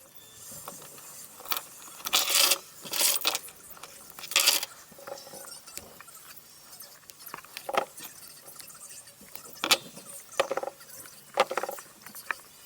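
Hand work on a MacBook Pro charger: irregular scraping and handling noises, then several separate sharp clicks.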